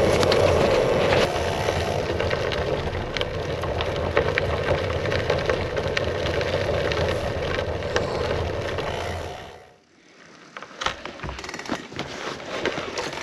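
Loaded gravel bike rolling over a rough, broken road: a steady tyre rumble with frequent small knocks and rattles. About ten seconds in it fades away, leaving a few scattered clicks.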